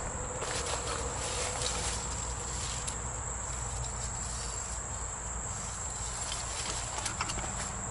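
Steady high-pitched chorus of insects trilling, with scattered light footsteps and brush crackling underfoot.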